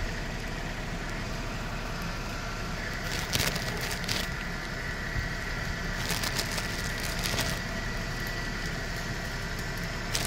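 Steady background hum with a faint, thin high whine held throughout, broken by a few short clicks and rustles.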